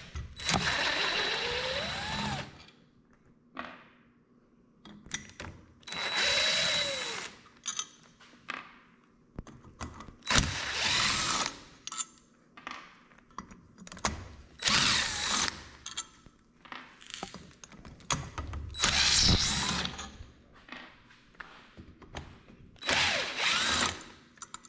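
Cordless power driver with a T30 Torx bit backing screws out of a Can-Am Maverick X3 clutch, in about six short runs a few seconds apart, with small clicks between them.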